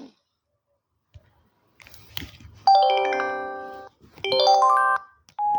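Samsung SGH-E300 mobile phone playing a built-in electronic chime through its small speaker. A couple of clicks come first. About halfway through, a bright chord sounds and fades over about a second, then a quick run of notes steps upward, and a short beep sounds at the end.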